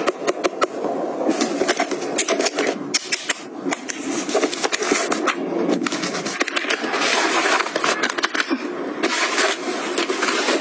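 Close-up handling sounds of plastic travel bottles and a nylon toiletry bag being packed: many quick clicks and taps of plastic over rustling fabric and mesh.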